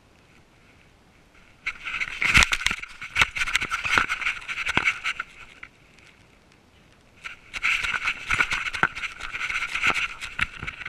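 Scraping and knocking against the GoPro's housing as the dog it is strapped to moves about, in two spells of about four seconds with many sharp knocks.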